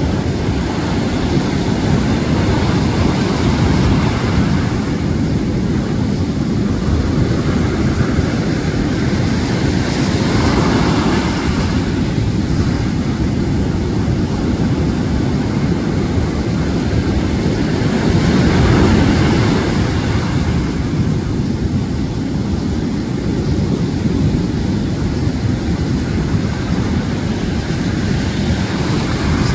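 Storm surf breaking on a beach: a loud, continuous low rush of waves and foam, swelling as bigger waves crash about a third of the way in and again past the middle.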